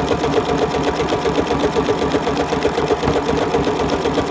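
Bernina sewing machine running steadily, stitching a zigzag applique stitch, its needle mechanism clattering in a fast, even rhythm.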